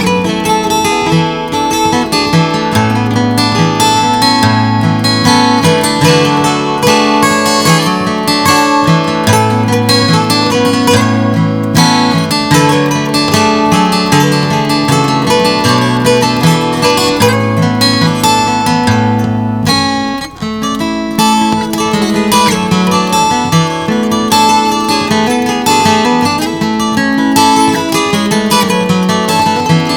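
Instrumental music led by guitar over a stepping bass line, with a brief break about twenty seconds in.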